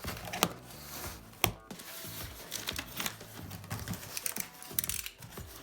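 Cardboard TV shipping box being opened and its packaging handled: rustling and crinkling, with two sharp knocks about half a second and a second and a half in.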